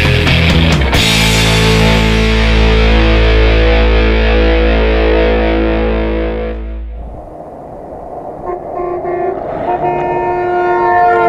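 Distorted rock music ending in a held chord that fades out about seven seconds in. Then several vehicle horns sound in steady held notes, on and off, as a convoy of off-road vehicles drives by.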